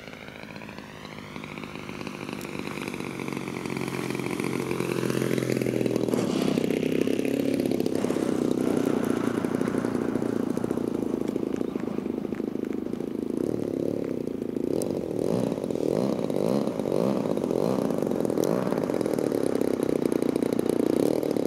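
Radio-controlled model airplane's engine. Its pitch glides up and down as the plane comes in to land, then it runs steadily at low throttle, growing much louder over the first several seconds as the plane taxis toward the microphone.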